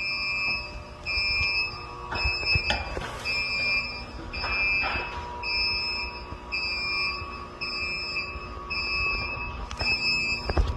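Electronic alarm sounding in long high beeps, about one a second, without letup, with a few knocks and rustles of handling under it.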